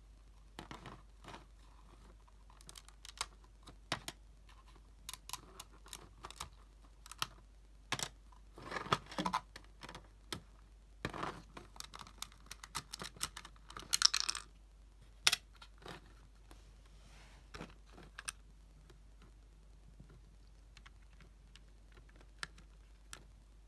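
Plastic LEGO bricks clicking and clattering as a hand handles and turns a LEGO model engine: scattered irregular clicks, with busier runs of clatter in the middle.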